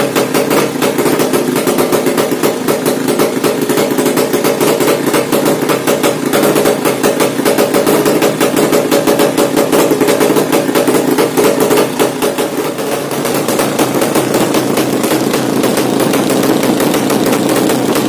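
200cc Yamaha Jupiter single-cylinder engine running loud through an open MP2 racing muffler, a rapid staccato of exhaust pulses. About thirteen seconds in it settles to a lower, steadier idle.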